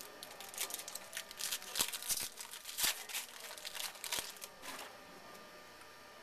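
Foil wrapper of a Bowman Chrome baseball card pack being torn open and crinkled. It gives a run of crackling rustles for about four seconds, loudest in the middle, then stops.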